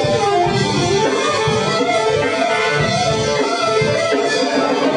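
Swing band with horns playing.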